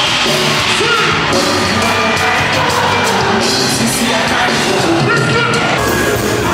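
Loud live Afrobeats concert music with a singing voice, and the crowd yelling along.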